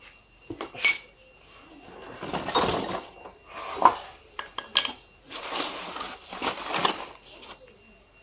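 Loose steel machine parts clinking against each other and the box as they are handled and lifted out, with a few sharp clinks among bursts of scraping and rustling from the cardboard and polystyrene packing.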